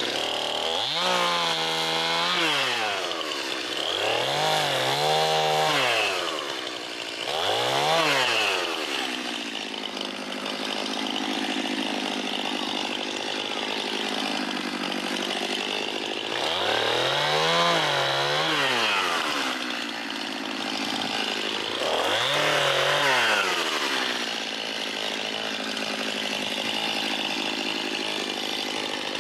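Stihl two-stroke chainsaw being revved: the engine rises and falls in pitch in five quick throttle blips, and for two longer stretches it is held steady at high speed.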